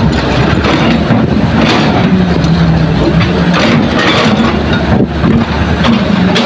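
Heavy diesel engine of a construction machine running steadily with a low drone, with irregular knocks and rattles over it.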